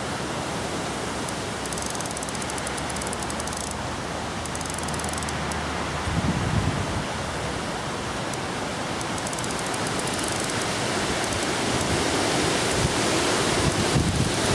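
Steady rushing noise of wind and the fast-flowing, flood-swollen river, slowly growing louder, with low buffeting of wind on the microphone about six seconds in and again near the end.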